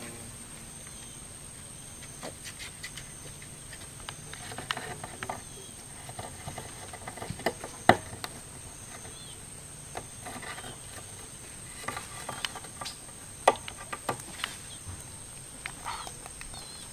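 A green parrot's beak tapping and knocking on a rough wooden bench, in scattered sharp taps, the loudest a little before the middle and again about two-thirds through. A steady high insect drone runs underneath, and a few faint high chirps come near the end.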